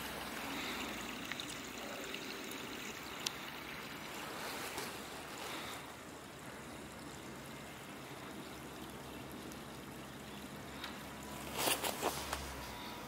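Steady rushing background noise, with a single faint click about three seconds in and a short cluster of knocks near the end.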